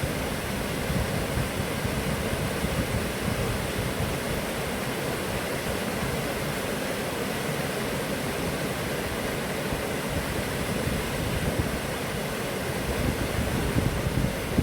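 Steady rush of a waterfall, an even hiss of falling water with a churning low rumble underneath.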